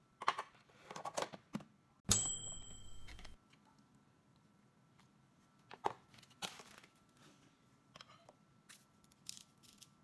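A metal spoon clinking and scraping in plastic microwave food boxes, with scattered sharp clicks from the boxes being handled. About two seconds in there is a louder burst of noise lasting about a second, which starts and stops abruptly.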